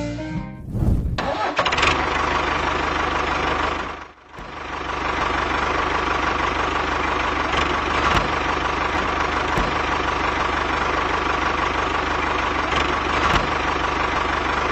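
Diesel tractor engine running with a fast, even beat. It drops away briefly about four seconds in, then picks up again and runs steadily.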